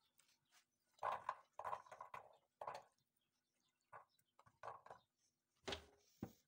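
Raw carrot slices set down one after another into an unglazed clay tagine base, making a string of faint knocks and taps in small clusters, the last two a little louder near the end.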